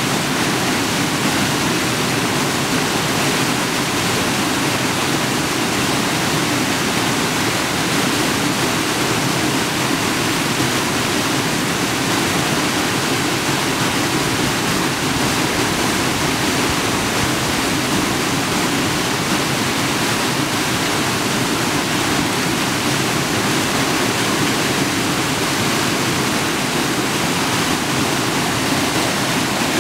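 Fast creek water rushing over falls, a loud, steady, even rush that does not change.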